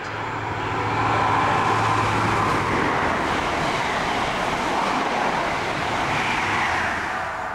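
High Speed Train, led by a diesel Class 43 power car, passing at speed. A low engine hum and the rush and rumble of its Mark 3 coaches on the rails swell within the first second, hold steady, and ease off near the end.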